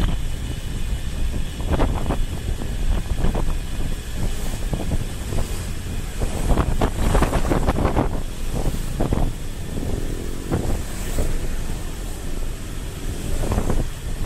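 Wind buffeting the microphone of a camera on a moving vehicle, in uneven gusts that swell and fade over a steady low rumble of road and engine noise.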